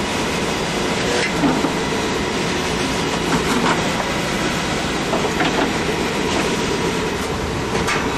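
Newly installed oil-fired furnace running: a steady burner and blower noise with a faint steady hum, and a few light knocks.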